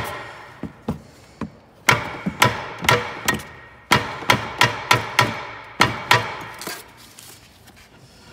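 Hand hammer striking a Tesla Model S rear brake caliper and disc through cardboard padding to knock the stuck part loose. There are about fifteen sharp blows in quick, uneven runs, each with a short metallic ring, and they stop about seven seconds in.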